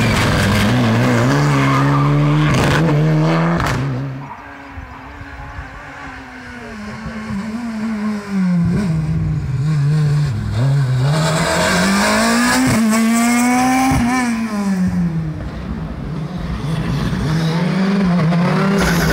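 Rally cars at full throttle passing one after another, engines revving up and dropping through gear changes. There are a couple of sharp cracks a few seconds in and a car's engine pitch climbs and then falls as it goes by near the middle.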